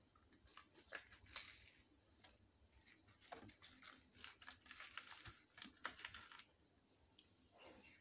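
Crisp deep-fried puri being torn apart by hand: a dense run of dry crackles and crinkles from about half a second in until about six and a half seconds, then quiet.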